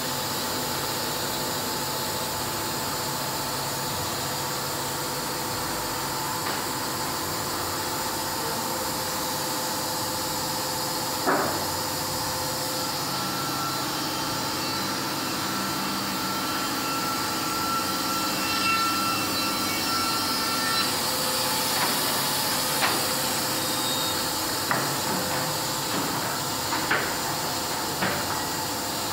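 Wood-Mizer WM3500 band sawmill running with a steady hiss, a steady high whine from about thirteen to twenty-one seconds in. A sharp knock comes about eleven seconds in, and a run of clunks near the end as sawn timber moves over the roller table.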